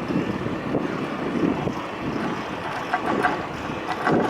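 Wind rumbling on the microphone over steady street and vehicle noise.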